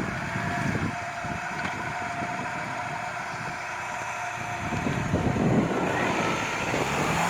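Honda CR-V engine running under load as the SUV drives up out of the snow, growing louder after about five seconds and rising in pitch near the end as it revs.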